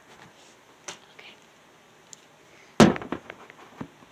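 A faint click about a second in, then a sharp, loud knock about three seconds in followed by a few quick, lighter taps and clicks.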